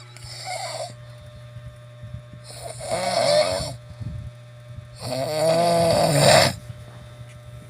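Snoring: three snoring breaths about two and a half seconds apart, each louder and longer than the one before. A steady low hum runs underneath.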